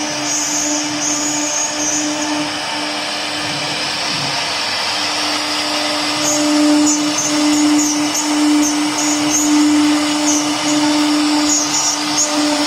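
Four-axis CNC router running, its spindle giving a steady whine over a broad hiss, the tone swelling and fading as the machine works.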